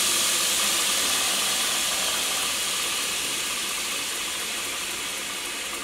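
Knife-making belt grinder's three-phase motor, run from a KB Electronics KBDA variable-frequency drive, running with a steady rush of motor and belt noise that slowly gets quieter.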